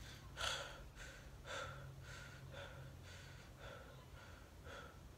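A person panting faintly, quick breaths about twice a second.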